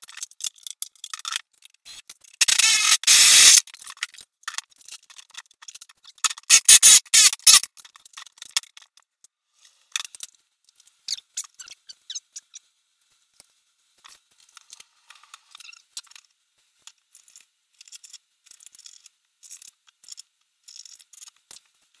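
Cordless drill boring into a plastic cooler lid in two harsh bursts about a second long, a few seconds apart, followed by scattered clicks, scrapes and handling of the lid.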